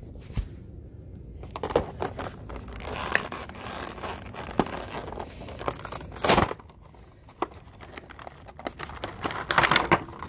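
A toy's plastic blister packaging being torn open by hand, crinkling and crackling with many sharp snaps. There is a louder tearing burst about six seconds in and a dense stretch of crinkling near the end.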